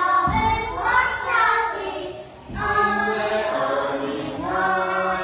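A group of young children singing together in unison, with a short break about two and a half seconds in.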